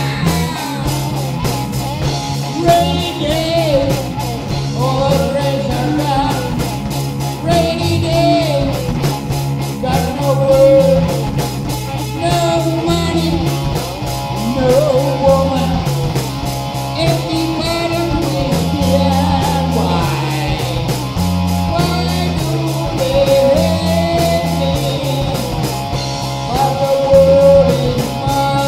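Hard rock music on a cigar box guitar, with a steady beat.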